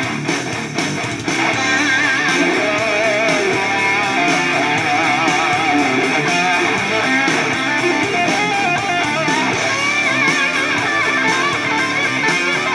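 Guitar music played back through a Samsung Bottle Design (EO-SG710) Bluetooth speaker and picked up by a microphone, with a lead line of wavering pitch from about two seconds in.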